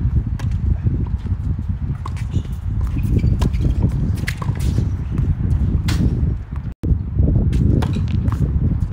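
Tennis racquets hitting the ball in a doubles rally: a serve, then sharp pops about a second apart, over a constant low rumble. The sound drops out for a split second about two-thirds through.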